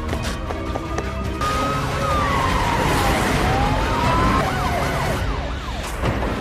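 Several police car sirens wailing at once, their tones rising and falling slowly and overlapping, with one switching to a faster up-and-down yelp about five seconds in.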